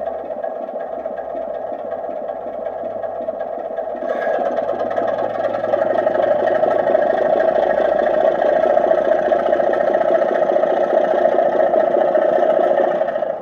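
Model class 25 diesel locomotive's sound decoder playing a diesel engine sound through its small speaker, running steadily. About four seconds in it steps up to a louder, fuller note, as when the engine is notched up under power, and it drops back suddenly near the end.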